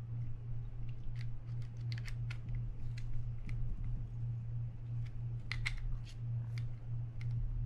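Small metal tool clicking and scraping against the gears inside an opened Penn Spinfisher 750SSM spinning reel, in scattered sharp clicks over a steady low hum. The tool is working at a jammed crosswind gear mechanism, whose bottom gear is probably damaged.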